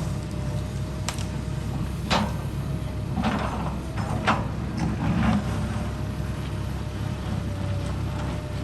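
Excavator's diesel engine running steadily with a faint steady whine, and several metallic clanks and scrapes over the first five seconds or so.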